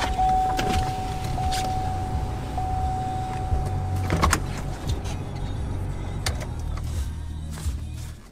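Pickup truck idling, heard from inside the cab, while a power window motor whines down, ending with a click about four seconds in. The engine's low rumble drops away near the end.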